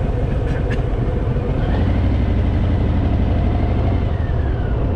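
Harley-Davidson Fat Boy's V-twin engine running steadily under way on the road.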